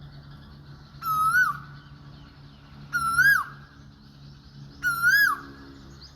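Cuckoo calling: three loud whistled calls about two seconds apart, each about half a second long, holding a note, lifting slightly, then dropping off sharply. Fainter chirping of other birds behind.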